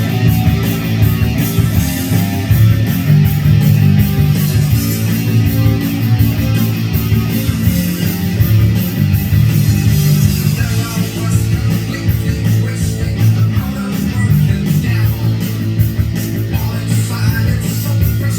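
Rock music with distorted electric guitar, loud and sustained.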